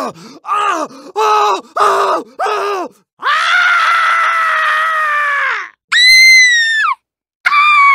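A girl screaming and squealing in pain as a yabby (freshwater crayfish) nips and hangs on her finger: a run of short yelps, one long cry, then two very high shrieks near the end.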